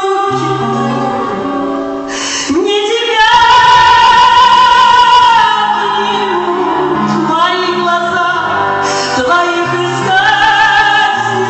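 A woman singing a slow ballad over band accompaniment. She holds one long note with vibrato a few seconds in.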